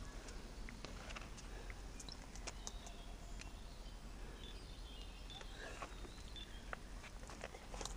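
Quiet outdoor ambience by a railway line: faint bird chirps and a few scattered clicks over a steady low rumble. No train is passing.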